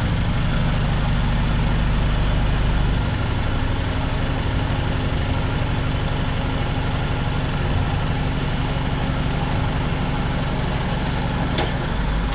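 BMW E90 engine running steadily at idle with a low hum. The deepest rumble drops about three seconds in, and a single faint click comes near the end.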